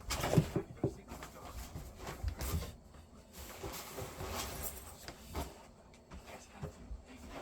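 Scattered light clicks and rattling of plastic LEGO pieces being handled and sorted.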